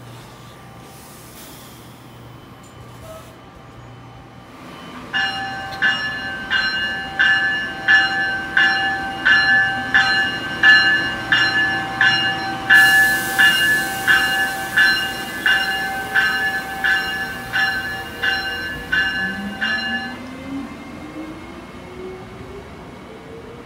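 Amtrak ACS-64 electric locomotive's bell ringing steadily about twice a second as the train rolls past, starting about five seconds in and stopping near the end. Near the end, a rising whine climbs over the low rumble of the passing train.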